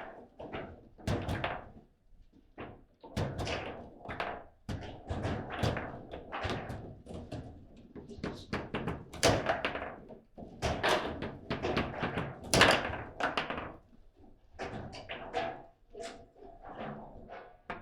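Table football rally: the hard ball knocking against the rod-mounted players and the table's walls, with rods clacking, in a quick, irregular run of hits, the loudest a little past the middle.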